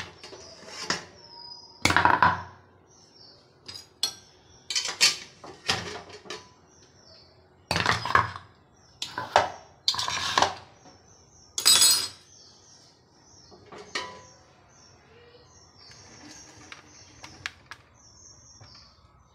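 Aluminium idli plates clanking and scraping against the steamer pot and each other as the stacked trays are lifted out and set down: a string of sharp metal knocks, some loud, with lighter clicks between. Small birds chirp faintly throughout.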